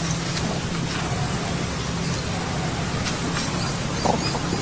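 Steady background hiss with a low hum underneath, and a brief faint call about four seconds in.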